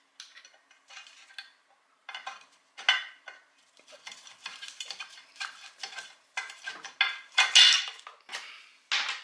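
Small metal parts and hand tools clicking, scraping and rattling in irregular bursts as a septic aerator air pump is taken apart, its electrical ground connection being worked loose. The loudest clatter comes a little past halfway.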